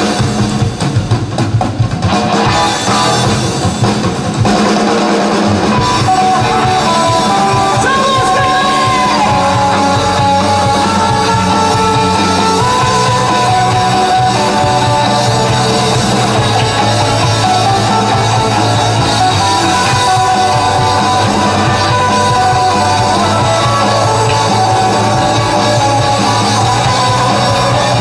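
Live indie rock band playing. The first few seconds are choppy and drum-heavy, then about four seconds in the full band comes in with guitars over a steady drum beat, carrying a melodic line.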